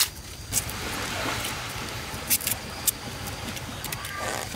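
Fresh ears of corn being husked by hand: husks tearing and rustling, with a few sharp snaps. A steady rushing noise runs underneath.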